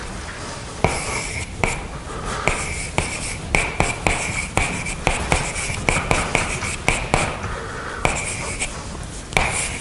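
Chalk writing on a blackboard: sharp taps as the chalk strikes the board, between scratchy strokes, at an irregular writing pace.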